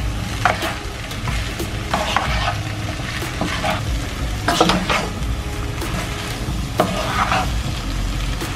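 Fried rice sizzling in a hot wok-style pan while a spatula stirs and scrapes through it, with several scraping strokes at uneven intervals over the steady frying hiss.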